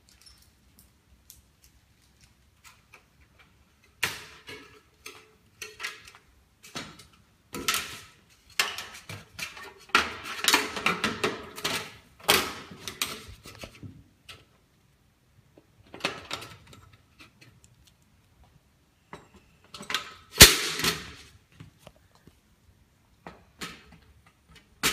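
Irregular small clicks, taps and rattles of hands handling the clips and CPC reflector mirror against the glass vacuum tubes of a solar collector, busiest in the middle, with one sharp louder click near the end.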